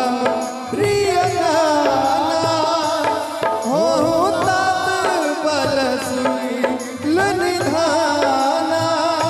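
Live Hindu devotional bhajan: tabla and dholak drumming with a Roland Juno-G electronic keyboard, under a long sliding vocal line held between sung verses.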